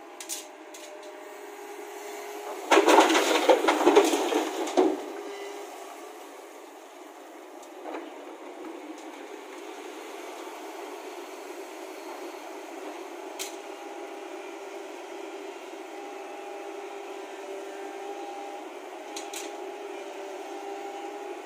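JCB tracked excavator's engine running steadily. About three seconds in, a bucketload of earth and stones is dumped into the dump truck's bed, a loud clatter and rumble lasting about two seconds.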